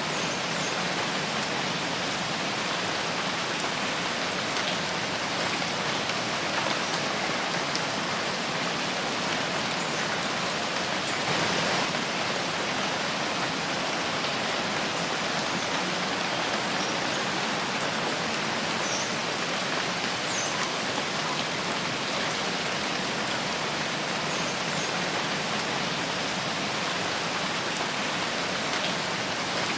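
Steady rain falling in a forest, an even, dense patter, briefly a little heavier about a third of the way in.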